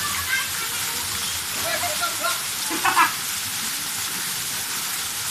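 Steady hiss of a waterfall's falling water, an even rushing noise with no rhythm, with faint voices briefly heard in it.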